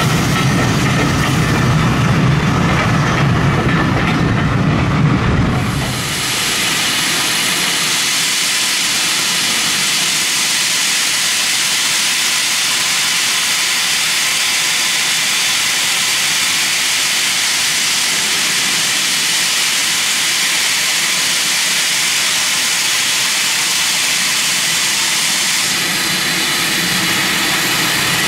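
Two steam locomotives, LMS 3F tank 47406 and BR Standard Class 2 78018, working slowly past coupled to a train, with a heavy rumble. About six seconds in this gives way to a steady, loud hiss of escaping steam from a locomotive.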